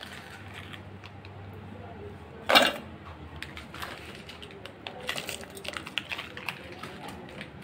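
Biscuits being handled and pressed into a steel mixer-grinder jar: one sharp, loud crack or clatter about two and a half seconds in, then light, irregular clicking and crunching.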